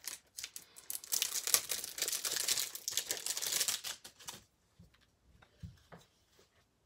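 Thin plastic crinkling as card packaging is handled: a dense crackle for about three seconds, with a few soft ticks and taps before and after.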